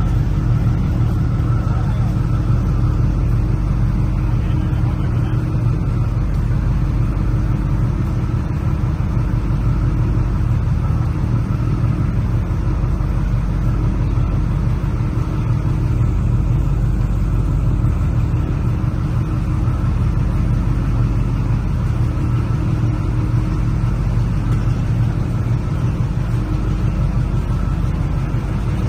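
Boat engines running steadily at low speed, a continuous low rumble.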